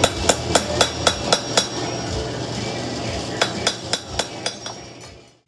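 Hand hammer forging a steel knife blade on a post anvil: sharp ringing blows at about four a second, a pause of about two seconds, then a second run of blows. The sound fades out near the end.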